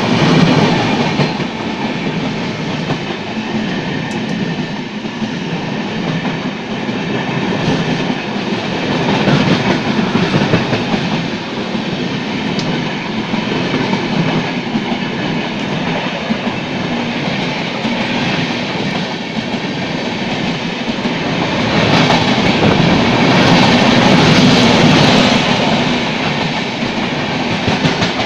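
Rajdhani Express coaches passing at speed close by: a steady rushing noise of the coaches and their wheels on the rails, growing louder about 22 seconds in.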